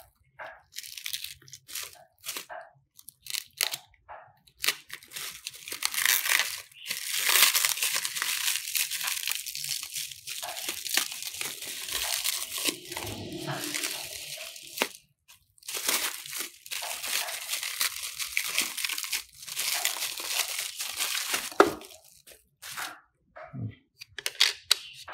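Black plastic stretch wrap being pulled and torn off a monitor stand base by hand, crinkling and tearing in long stretches and short bursts. A single sharp click sounds near the end.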